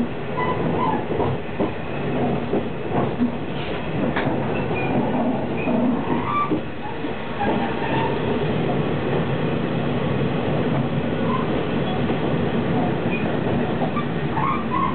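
Cabin sound of a KiHa 48 diesel railcar running along the line: a steady rumble of wheels and engine, with a few sharp clicks from the rails in the first few seconds.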